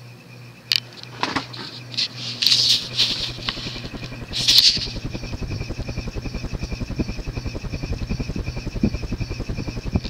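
Union Hugger ceiling fan with a large cast iron spinner motor running with a steady hum. A few sharp clicks and short rustling bursts come in the first seconds. About halfway through, a rapid, even pulsing sets in and keeps going.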